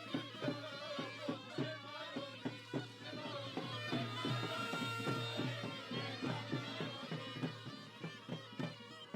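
Sampouna (Greek island bagpipe) music: a folk tune over a steady low drone, with a quick, regular beat of strikes.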